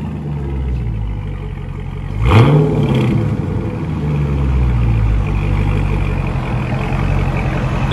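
Dodge Charger Scat Pack's 6.4 L HEMI V8 idling through an aftermarket exhaust. About two seconds in, a sharp throttle blip is the loudest moment, and the revs fall back to idle. A smaller blip follows, and a gentler rise and fall comes around five seconds in.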